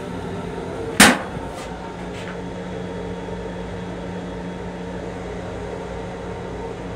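A plastic toilet lid drops shut with one sharp clap about a second in, over the steady hum of the M7 railcar's running equipment.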